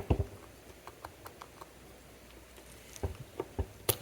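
Light clicks and taps of a watch movement and small tools being handled on a work surface, with a louder knock right at the start and a few more knocks about three seconds in.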